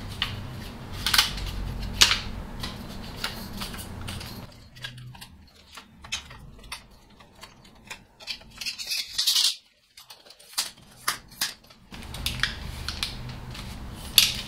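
Aluminium Peak Design Travel Tripod being folded and collapsed by hand: a run of irregular clicks and clacks from its lever leg locks and leg sections, with a short scraping slide about nine seconds in.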